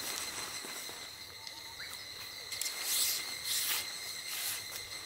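Nylon tent fabric and tent poles rustling and scraping as they are handled, in a few short bursts, the loudest about three seconds in. A steady high-pitched drone runs underneath.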